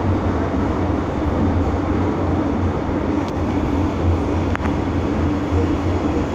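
Cabin noise inside an MTR M-Train, a Metro-Cammell electric multiple unit, running along the track: a steady low rumble of wheels and running gear, with two faint clicks a little after the middle.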